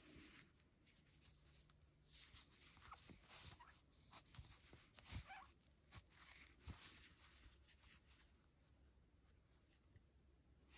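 Faint, scattered squeaks and rustles of cotton yarn being worked through stitches on a crochet hook, mostly in the middle of an otherwise near-silent stretch.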